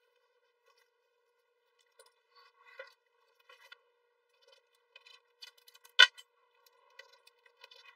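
Paper stencils and blue painter's tape being handled and pressed onto a mesh-covered board: scattered soft rustles and small scrapes beginning about two seconds in, with one sharp tap about six seconds in.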